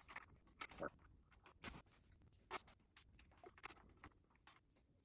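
Faint, irregular clicks and taps, about one a second, of a hex key turning the bolt that holds a bike headlight to its bracket while it is tightened.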